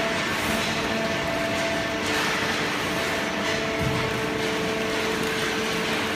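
Hydraulic cardboard baling press running, a steady machine hum with several constant tones over an even noise.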